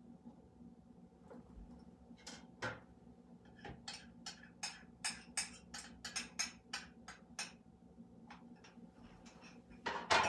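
Kitchen handling at the counter: a run of sharp clicks, about two or three a second, from about two seconds in until past seven seconds, then a louder clatter near the end. A faint steady hum sits underneath.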